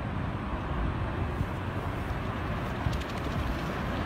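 Wind buffeting the microphone: a steady rushing noise, heaviest in the low end, with no distinct events.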